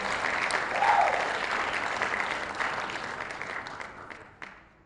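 Audience applauding, with a short whoop about a second in. The clapping thins out and fades away near the end.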